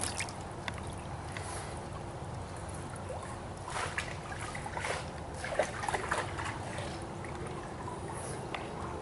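Pool water sloshing and trickling around the hull of a large model RC submarine as it is set into the water and settles, with a run of small splashes and drips around the middle.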